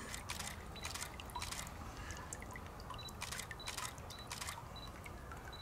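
A camera's shutter clicking repeatedly at irregular intervals, with several short high beeps, over faint dripping and trickling water.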